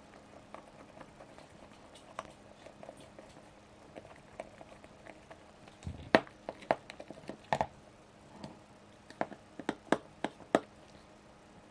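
Hands handling small tools and hardware on a workbench: light ticks and taps, then a run of sharper clicks and knocks in the second half.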